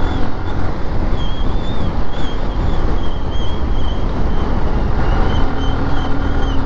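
Motorcycle riding along a paved road, heard from the rider's helmet camera: loud wind rumble on the microphone over the engine, with a steady engine hum coming up about five seconds in and short high chirps in the background.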